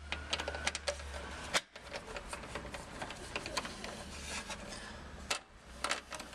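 A screwdriver backing a self-tapping screw out of a Land Rover Defender's headlight mounting panel: a run of small metallic clicks and scrapes, over a steady low hum.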